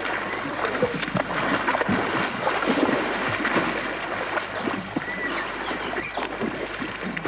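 Water splashing and churning as two swimmers wrestle and thrash about in a river, in a steady run of irregular splashes.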